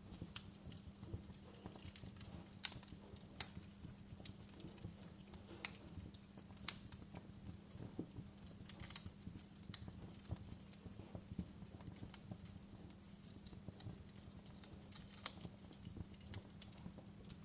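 Fireplace fire crackling: irregular small pops and ticks, with a handful of louder snaps, over a steady low hum.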